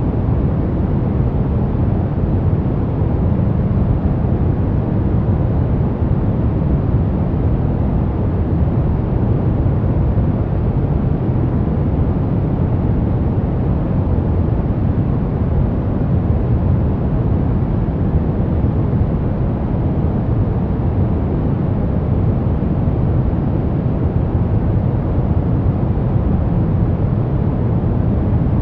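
Continuous sleep-noise track: an even, unbroken hiss with most of its weight low, so it sounds deep and rumbling rather than bright, with no changes or rhythm.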